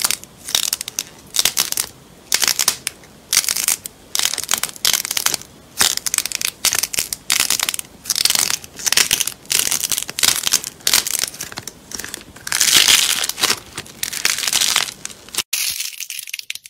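Thick yellow slime molded into balls being squeezed and pressed between fingers, giving repeated crackly, crunchy squishes, about two a second, with a longer crackling squeeze late on. It stops suddenly near the end.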